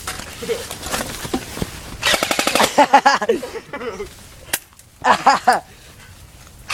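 Electric airsoft guns firing on full auto: a rapid burst of shots about two seconds in and a shorter burst about five seconds in, with scattered single shots before them.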